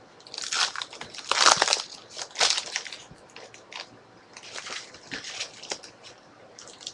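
Foil wrappers of trading card packs crinkling and tearing in irregular bursts as the packs are opened by hand, loudest about a second and a half in.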